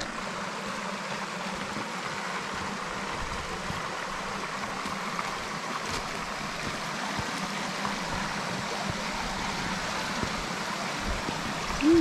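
Shallow mountain stream running over rocks: a steady rush of flowing water.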